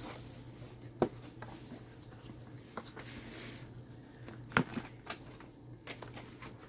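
A few light clicks and knocks of plastic food-storage containers being handled on a counter, the loudest a little over halfway through, over a steady low hum.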